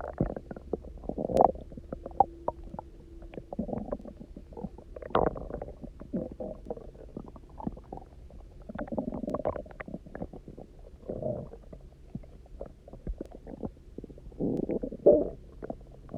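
Human stomach rumbling and gurgling from an empty stomach after a day without food and a lot of water drunk, the hunger noises known as borborygmi. Irregular gurgles and squelches come with sharp little pops, with a short held tone about two seconds in and the loudest gurgle near the end.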